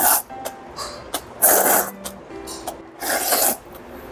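A person slurping noodles from a bowl: three loud, noisy slurps about a second and a half apart, over faint background music.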